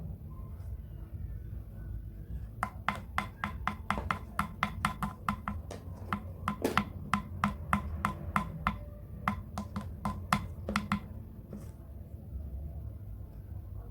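A quick series of sharp taps of a hard object, about three or four a second for around eight seconds, with one louder knock midway, over a steady low hum.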